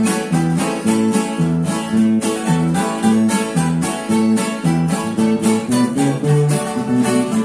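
Acoustic guitars strummed in a steady rhythm over an electric bass line: a small string ensemble playing an instrumental song intro.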